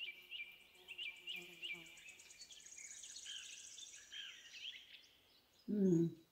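Small songbird chirping over and over, with a fast high trill through the middle. Near the end a person chewing gives a short hummed 'mmm'.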